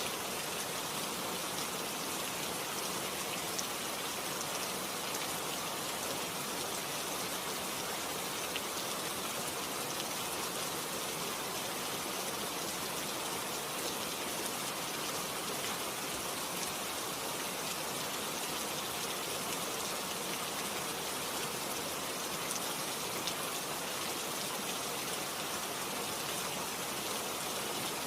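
Steady rain falling, an even hiss with a few louder single drops.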